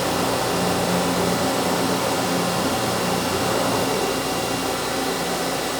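CNC machine running steadily: a constant mechanical hum with several held tones over a hiss, no pauses or impacts.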